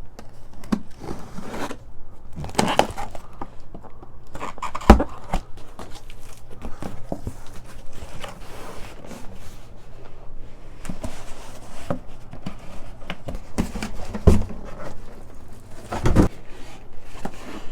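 Cardboard packaging being opened and handled: irregular scraping and crinkling with a string of knocks and taps, the sharpest about five seconds in.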